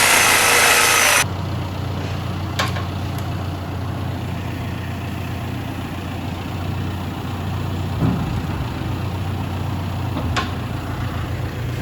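A loud hiss with whistling tones stops abruptly about a second in, leaving an engine idling steadily, with a few sharp clicks over it.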